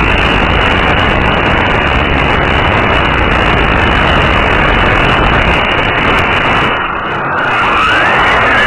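Traxxas Rustler RC truck with a 4000kv brushless motor on a 3S LiPo, heard from a camera mounted on the truck as it drives on asphalt: loud, rough noise from the motor, gears and tyres. It dips briefly about seven seconds in as the throttle eases, then a motor whine rises in pitch as the truck speeds up again near the end.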